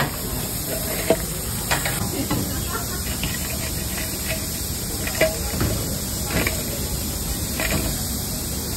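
Steady hiss of oil deep-frying in a large wok, with several sharp clinks of steel utensils and a steel bowl as fried chicken is lifted out and spiced.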